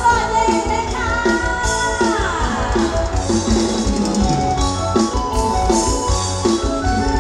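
Amplified Isan mor lam band music with a steady drum beat; a long high note slides down about two seconds in.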